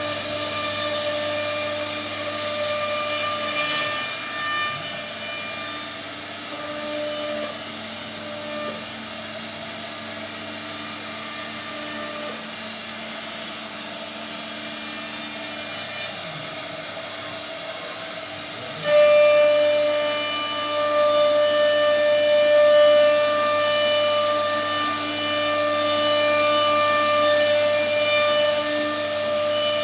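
CNC router spindle running with a steady high whine while cutting wood. It is quieter for a stretch, then gets louder again about two-thirds of the way through as the bit bites harder into the material.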